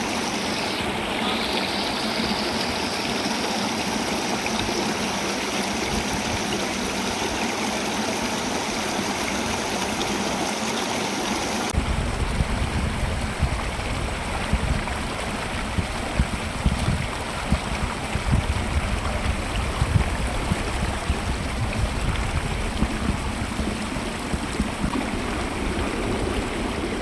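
Rushing water of a mountain stream or waterfall, a steady noise. About twelve seconds in the sound shifts abruptly to a deeper rumble with irregular low thumps.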